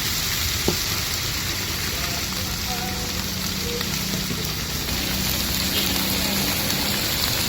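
Food frying in hot oil, a steady sizzle, with one sharp knock less than a second in.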